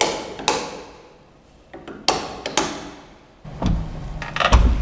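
A few sharp knocks echoing in a bare room, then a door's lever handle and latch clacking as it is worked with a handheld hook tool, the loudest knock near the end.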